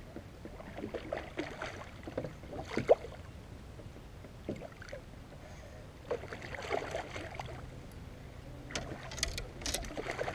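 Scattered light knocks, rustling and water movement around a kayak while a hooked bass is fought in brush at the water's edge, with a quick cluster of sharp cracks about nine seconds in as branches are grabbed.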